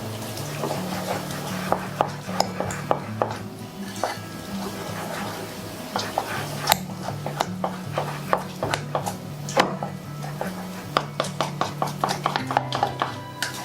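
A utensil knocking and scraping against a jar while stirring thick sourdough starter, in quick irregular clinks, over background music with a stepping bass line.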